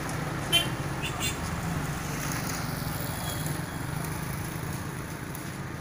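Road traffic at a railway level crossing: motorcycle and car engines running as vehicles cross the tracks, with two short sharp sounds about half a second and a second in.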